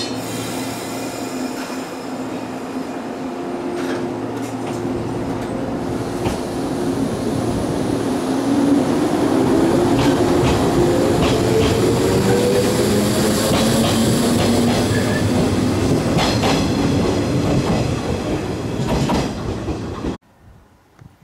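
A 115-series electric train pulling out and gathering speed: the traction motors whine, climbing steadily in pitch, and the wheels clatter over rail joints as the cars pass close by. The sound cuts off suddenly near the end.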